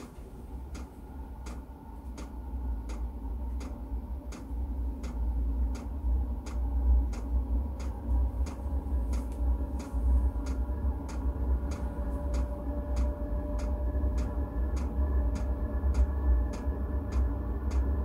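Chinese diesel night heater running during warm-up: its fuel dosing pump ticks steadily, a little faster than once a second, over the low, steady rumble of the heater's fan and burner.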